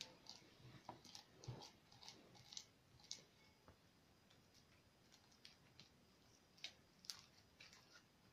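Faint, irregular clicks and small pops of homemade slime being kneaded and stretched by hand.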